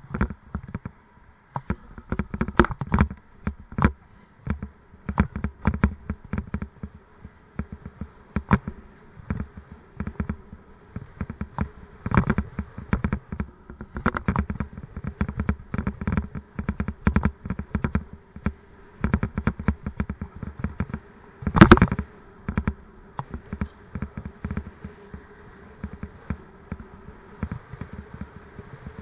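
A bike-mounted camera and its mount rattling and knocking as the bicycle rides over rough road: dense, irregular clattering knocks in bursts, the loudest a hard knock about three-quarters of the way through, over a faint steady buzz.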